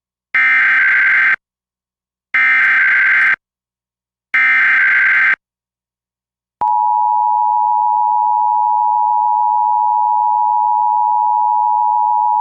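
Emergency Alert System SAME header: three loud one-second bursts of warbling digital data tones, about a second apart. About six and a half seconds in, the steady EAS attention tone starts and holds.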